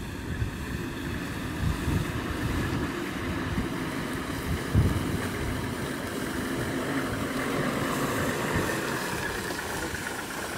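A vehicle engine running steadily, with wind buffeting the microphone in irregular low gusts.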